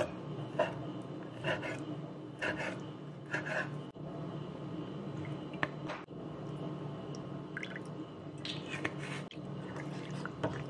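Chef's knife cutting raw chicken on a wooden cutting board, a handful of knocks about a second apart. Then liquid is poured into a bowl over the meat and the chicken is worked by hand, with scattered small clicks and wet sounds.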